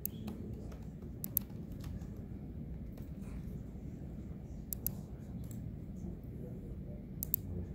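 Sharp clicks from a computer in use, typing keys or clicking, in close pairs three times over a steady low room hum.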